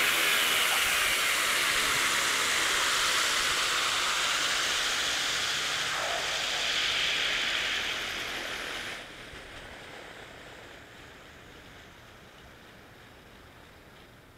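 Four-blade rotor of an electric Align T-Rex 500 Pro RC helicopter spinning down on the ground, with a steady rush of blade noise that slowly fades. The noise drops sharply about nine seconds in, then dies away to a faint swish as the blades slow.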